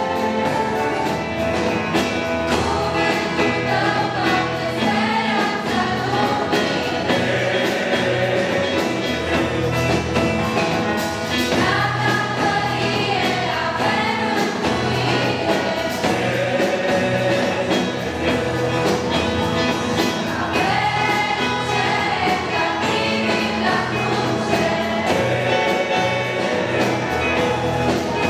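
Mixed choir of young men and women singing a gospel song together, accompanied by a small band with drum kit and keyboard.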